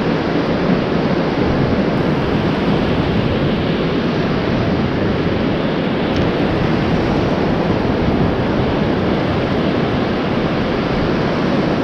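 Steady rush of surf, with waves washing up the sand at the waterline and wind rumbling on the microphone.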